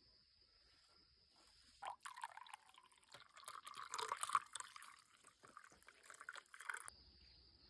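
Faint water trickling and splashing in irregular spurts. It starts about two seconds in and cuts off abruptly near the end.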